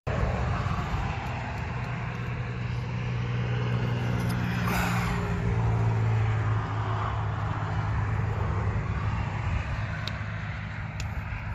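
A motor vehicle's engine running on a nearby road, a steady low hum that swells to its loudest midway and eases slightly toward the end, over outdoor wind and handling noise.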